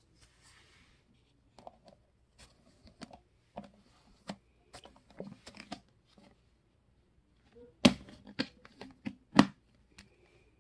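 Thin clear plastic deli-cup lid being handled and pressed onto its cup: a run of crackles and sharp plastic clicks, with the two loudest snaps near the end.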